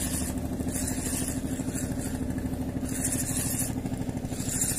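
Small engine running steadily at an even speed, with a high hiss that swells and fades about once a second.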